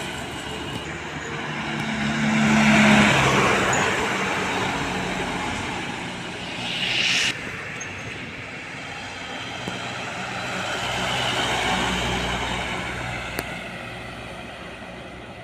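Trucks passing on a highway, one after another: engine drone and tyre noise swell as each comes by and then fade, with the loudest pass about three seconds in and another near twelve seconds. A short hiss about seven seconds in cuts off sharply.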